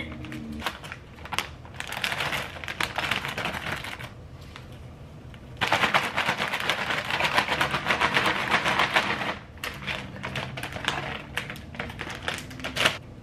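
Crinkly potato chip bag being torn open and handled, a dense crackling. It gets loud in a long stretch of rustling in the middle as the bag is lifted and moved, then turns lighter as a hand reaches in for a chip.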